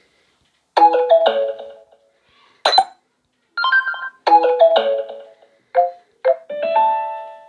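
Samsung Galaxy S21 notification tones previewed one after another through the phone's speaker: a series of short electronic chimes and jingles with brief gaps between them, the last one ringing a little longer.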